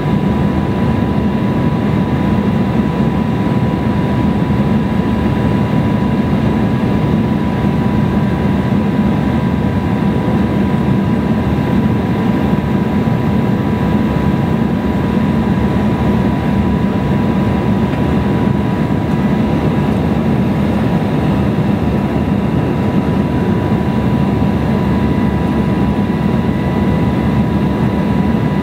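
Steady in-flight cabin noise of an Embraer E175 jetliner: the even drone of its wing-mounted General Electric CF34 turbofans and the airflow over the fuselage, with a thin steady whine above the rumble.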